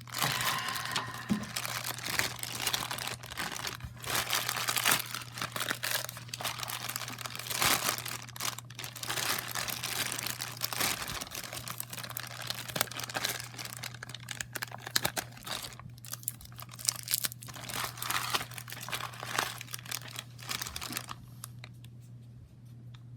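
Paper packing being crumpled and torn off by hand, a dense run of crinkling that thins out near the end, over a steady low hum.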